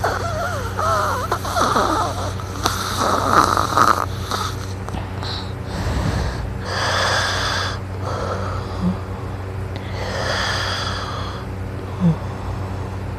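A man snoring in his sleep. Wavering, whistle-like wheezy tones come through the first four seconds, then two noisy snoring breaths about three and a half seconds apart, over a steady low hum.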